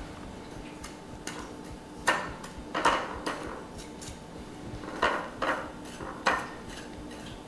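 Fingers mixing seasoned breadcrumbs in a glass pie plate: a few short, scratchy rustles of crumbs scraping against the glass.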